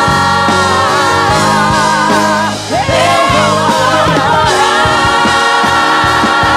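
Women's group singing a gospel song live over a band with drums, holding long notes with vibrato; the singing drops out briefly about two and a half seconds in and then resumes.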